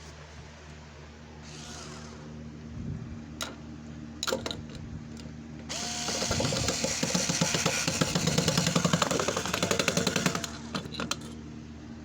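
A power drill running for about five seconds with a fast rattle, starting about six seconds in, likely driving screws to mount the alarm. A few clicks and knocks come before it.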